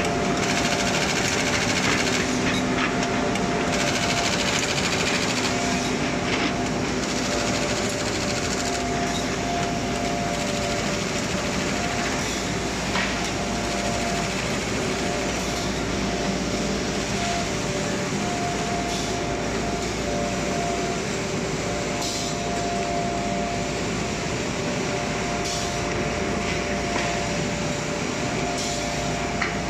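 SP-ZD4500x2500 automatic jumbo folder gluer running corrugated board through: a steady mechanical clatter of the feed and folding sections, with a whining tone that cuts in and out every few seconds and an occasional click.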